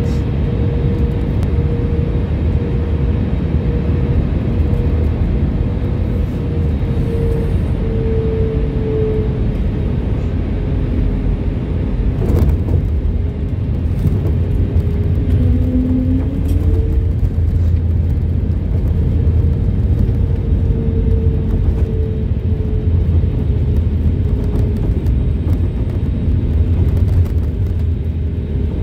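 Jet airliner cabin noise heard from a window seat over the wing during landing: a steady low rumble with the engine's wavering hum. A brief knock comes about twelve seconds in.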